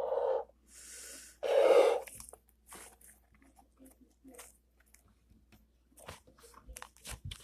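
Breathy puffs of air, the loudest a short burst about two seconds in, then slime being squished and pulled, with many small sticky clicks and crackles.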